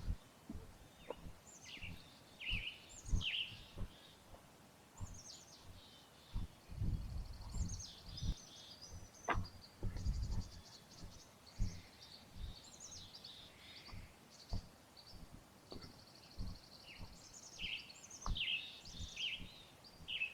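Several birds chirping and trilling, with footsteps and low thumps on the trail about once a second, heavier twice in the middle.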